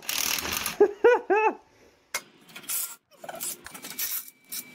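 Cordless DeWalt impact driver hammering on a seized, rusted bolt in short bursts, working it loose, with three short squeaks about a second in.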